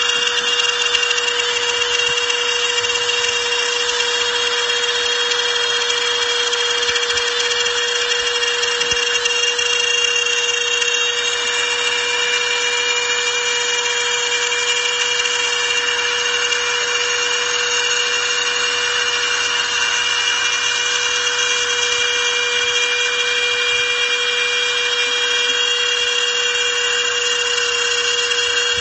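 CNC router spindle cutting aluminium: a steady high whine with a continuous hissing cutting noise that holds at an even level throughout.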